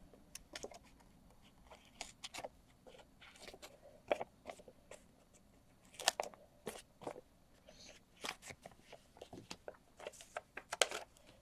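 Small craft scissors snipping through strips of foam adhesive dimensionals: a string of short crisp snips and crunches at uneven spacing, the loudest about six seconds in and near the end.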